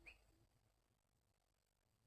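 Near silence, with only a couple of very faint, short, low hoots of a greater coucal in the first half second.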